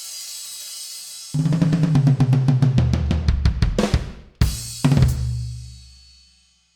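Drum kit ending a solo. A cymbal rings out at first, then about a second in comes a fast fill of rapid strokes down the toms with kick drum. It finishes with two heavy accented hits with cymbals that ring and fade away.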